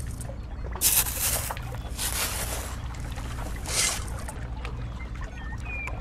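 Miniature metal shovel scraping and scooping damp sand in three short gritty strokes about a second apart, over a steady low background rumble.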